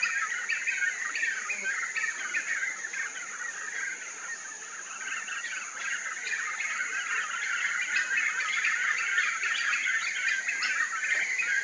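A flock of black-fronted nunbirds calling together in a dense, continuous chorus of overlapping notes, easing off a little about four seconds in and building up again after.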